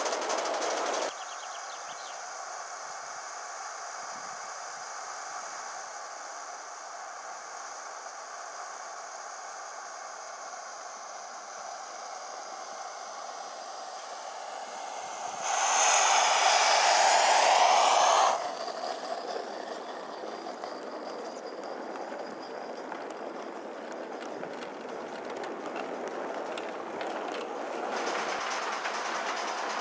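Gauge 1 live-steam model Tilbury tank locomotive running with its train of coaches: steady steam exhaust and the clatter of wheels over the track. Midway comes a much louder burst lasting about three seconds that stops abruptly.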